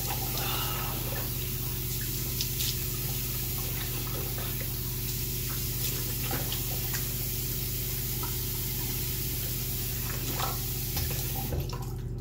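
Tap water running steadily into a bathroom sink, with a few small splashes and clicks, turned off near the end.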